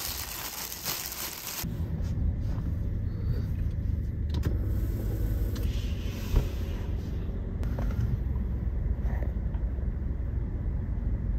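A thin plastic bag rustles for a moment. Then comes the steady low rumble of a car heard from inside its cabin, with a few light clicks.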